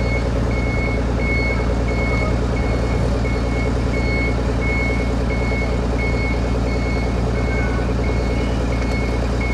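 Reversing-style warning beeper sounding evenly spaced high beeps, about one and a half a second, over a heavy diesel engine running steadily.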